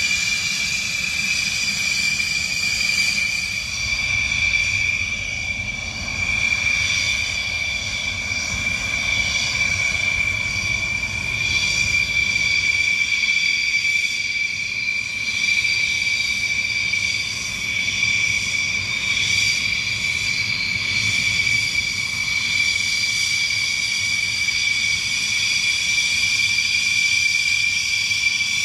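Dassault Rafale fighter's twin M88 turbofan engines running at taxi power: a steady high-pitched turbine whine over a low rumble.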